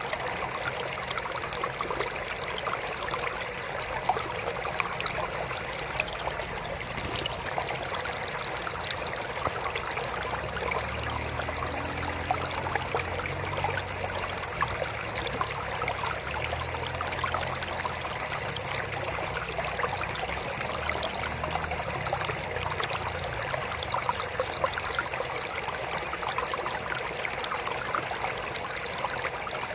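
Water trickling steadily in a small aquarium water feature, a continuous fine splashing with many tiny drips. A low hum comes in about ten seconds in and fades out a little after twenty seconds.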